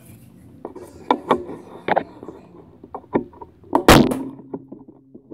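A homemade crossbow with split-willow limbs and a paracord string is handled with a few light clicks and knocks, then fired about four seconds in with one loud sharp snap. A low hum rings on briefly after the shot.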